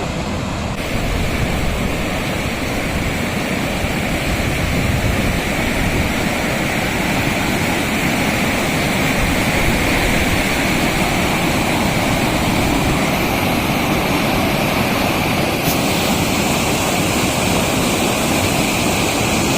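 Rivulet of snowmelt water from the mountains rushing past close by, a loud, steady rush of water.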